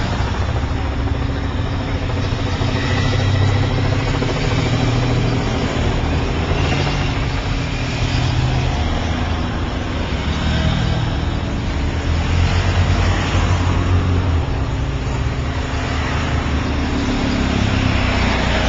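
Motor vehicles of a cycle race convoy driving up the hill past the spectators one after another. Their engines run continuously, swelling and fading as each one goes by.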